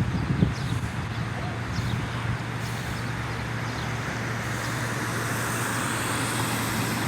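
Street traffic: a steady low engine hum, with a couple of low thumps right at the start, then the noise of a vehicle building over the last couple of seconds.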